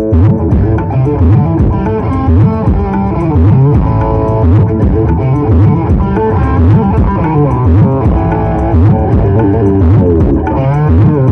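Loud music played through a large SPL Audio sound-system stack of subwoofers and line arrays at a sound-check display. It has heavy bass and a plucked, guitar-like melody that slides in pitch.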